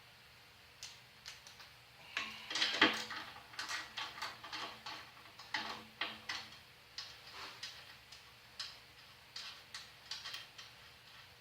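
Irregular sharp clicks and knocks, a few a second, loudest about two to three seconds in: hand tools and loose parts being handled while the molder planer is taken apart.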